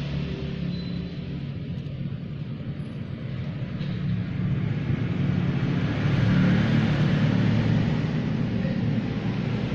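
Motorcycle engine running with a steady low hum, getting louder about five seconds in and easing off near the end.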